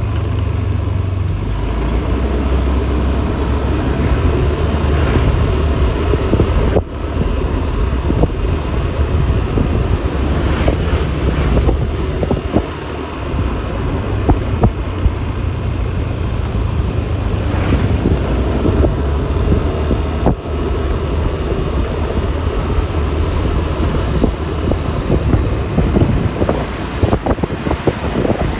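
Wind rushing over the microphone and road noise from a moving Yamaha Lexi LX 155 scooter, its small single-cylinder engine running underneath at cruising speed.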